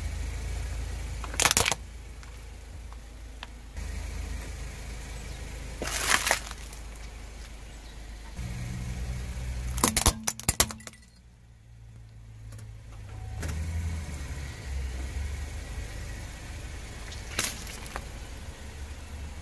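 A car tyre rolling slowly over small plastic objects, crushing them with a few short sharp cracks and snaps, over the low rumble of the car. The loudest cluster of snaps comes about halfway through.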